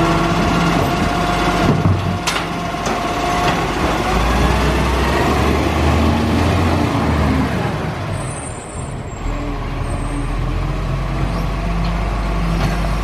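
Garbage truck's diesel engine running close by, with a few sharp knocks in the first three seconds and a brief high squeal about eight seconds in.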